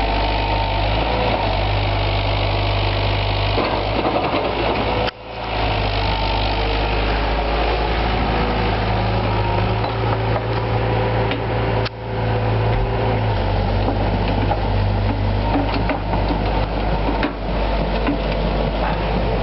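JCB JS130 tracked excavator's diesel engine running steadily while the machine digs. The sound drops out briefly twice, about five and twelve seconds in.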